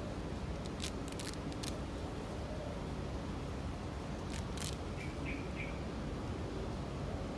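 Outdoor ambience with steady low background noise, a few brief rustles and clicks as hands handle the chrysanthemum's leaves and stems, and a short run of bird chirps about five seconds in.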